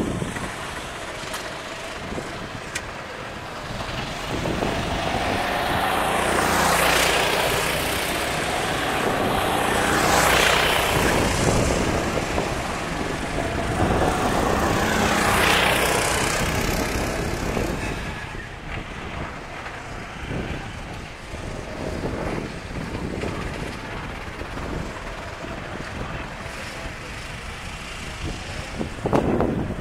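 Sodi RT8 rental karts with four-stroke engines passing on a wet track: three loud pass-bys about seven, ten and fifteen seconds in, each a hiss of tyre spray with an engine note that shifts in pitch as the kart goes by, then quieter engines running further off.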